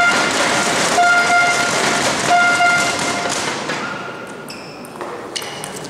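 Spectators cheering and clapping while a supporter's horn sounds two short, high blasts, the noise dying down after about three seconds. A few sharp clicks of a table tennis ball being hit follow near the end.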